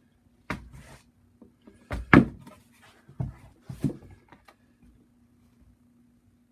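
Wooden boards knocking and clattering as pieces are set in place, with four or five separate knocks, the loudest about two seconds in, over a faint steady hum.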